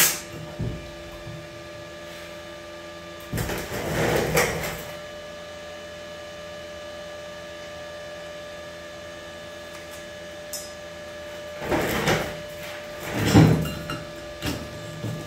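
MIG welding arc cutting off right at the start, leaving the welding machine humming steadily. A few louder bumps and rustles of handling come about 3–5 s in and again near the end.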